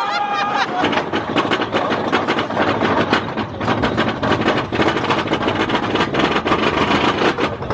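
Big Thunder Mountain mine-train roller coaster running along its track: a dense rush of noise with fast, irregular rattling and clattering.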